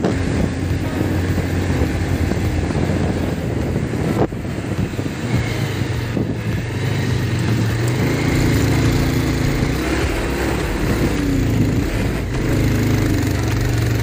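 Bajaj Pulsar 220F motorcycle's single-cylinder engine running while under way, its note stepping up a little about five seconds in and again about eight seconds in, with wind rushing on the microphone.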